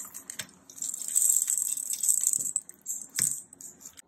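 Spatula scraping and folding stiff chocolate chip cookie dough in a stainless steel mixing bowl: a scratchy, irregular scraping with small knocks against the bowl, and one sharper knock about three seconds in.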